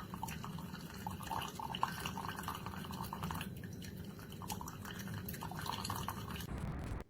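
Tastyle single-serve coffee maker brewing: coffee trickling and dripping into the mug in irregular spatters over a steady low hum.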